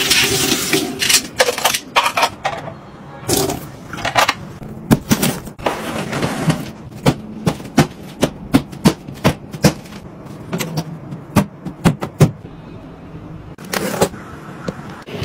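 Tap water running into a sink at the start, then a long run of sharp clicks and knocks, two to three a second.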